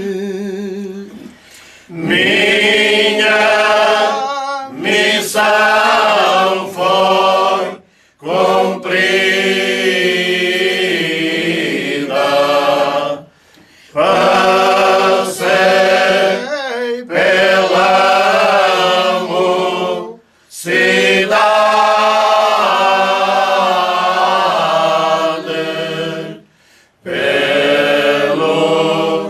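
Men's choir singing cante alentejano unaccompanied: long, slow, drawn-out phrases in full chorus, broken by short pauses for breath every five to seven seconds.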